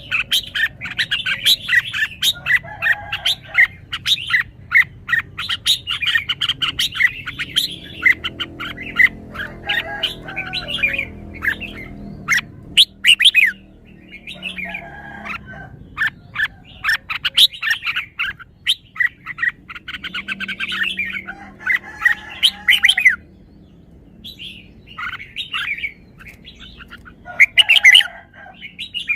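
Red-whiskered bulbul singing: rapid runs of short, bright chirped and whistled notes in phrases, with a couple of brief pauses.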